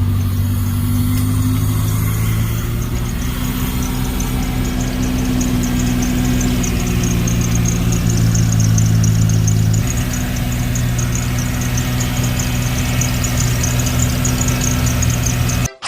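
Toyota Corolla AE101's four-cylinder engine idling steadily just after being brought back to running, with a fast, regular high ticking over the low hum. The idle note shifts slightly about ten seconds in, and the sound cuts off suddenly at the very end.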